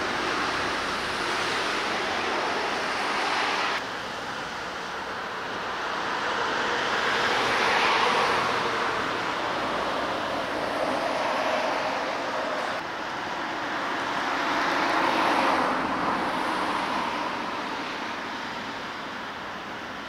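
Street traffic noise: cars passing by, the sound swelling and fading twice, about a third of the way in and again about three quarters in, over a steady rushing hiss.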